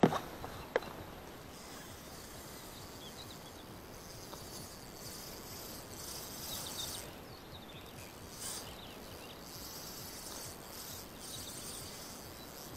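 Insects chirring steadily in a high, shimmering band over quiet open-air ambience, swelling and fading a little. A sharp knock right at the start and a short click just under a second in.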